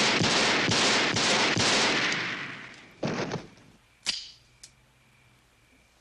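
Rapid handgun fire: a string of shots about two a second, the reports running together and echoing, then fading out. A shorter crash follows about three seconds in, and a sharp click about a second after that.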